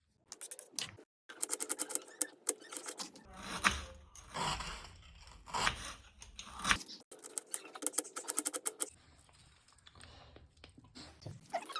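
Kitchen food-preparation sounds: runs of quick, sharp taps and clicks, with scraping and rustling between them.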